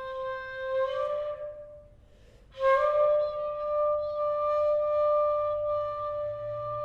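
Shakuhachi bamboo flute playing slow held notes. One note bends slightly upward and fades away, and after a brief pause a new note starts with a breathy attack and is held steadily.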